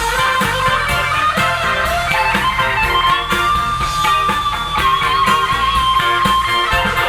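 Live rock band playing an instrumental break over steady drums and bass. An electric lead guitar bends a note up about three seconds in and holds it, wavering slightly, for several seconds.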